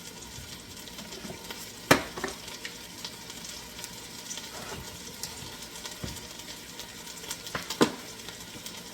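Ground beef frying and sizzling as it browns in a Dutch oven while being stirred, with two sharp knocks of the utensil against the pot, about two seconds in and near the end.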